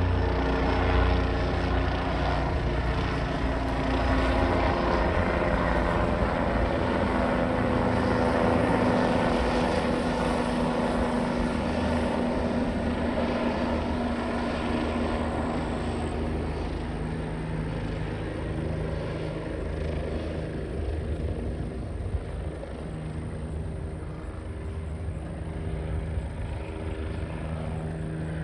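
Bell helicopter flying past low, its rotor and engine running with a steady low beat. Loudest over the first several seconds, then slowly fading as it moves off.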